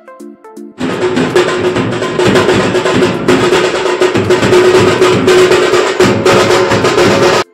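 Bass drum and snare drum beaten with sticks in a fast, loud, dense festive rhythm that starts suddenly about a second in and cuts off just before the end. A short tune of stepping notes plays before the drumming begins, and a steady tone runs under the drumming.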